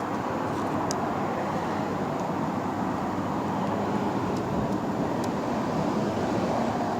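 Steady background road-traffic noise, with a few faint light clicks of a screwdriver working at a plastic connector tab.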